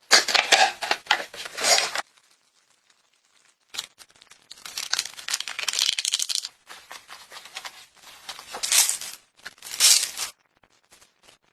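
Packaging crinkling and being torn open by hand, in three crackling bursts separated by short pauses.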